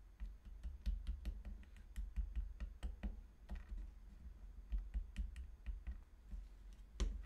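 Light, irregular clicks and taps of small 3D-printed plastic parts being handled and pressed together on a work table while a piece is glued in place, with a sharper knock near the end.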